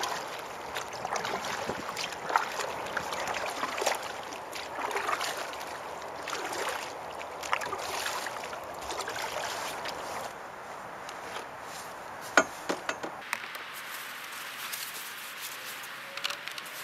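Canoe paddle strokes swishing and splashing through calm water, one stroke roughly every second. About three-quarters through come a few sharp knocks, then quieter handling noise on a dock.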